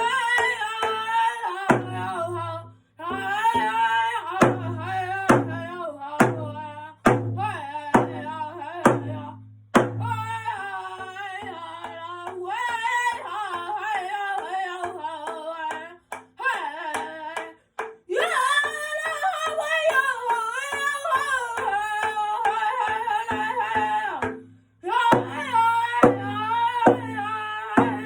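A singer performing an Indigenous song over a steady drum beat. The drum strikes hard for most of the song and is softer through the middle, with two short breaks where voice and drum stop.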